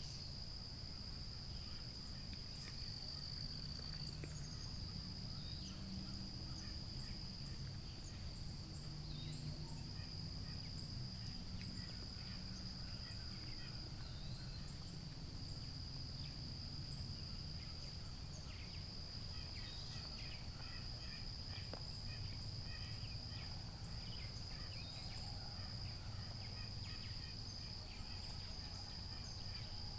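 A steady, high-pitched chorus of summer insects, with scattered short chirps and a low background rumble.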